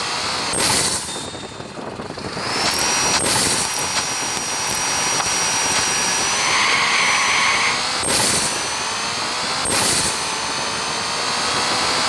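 Turbocharged car engine running under power with a high, steady turbo whistle, broken by several short hissing bursts of turbo flutter. There is a brief dip in level a second or two in.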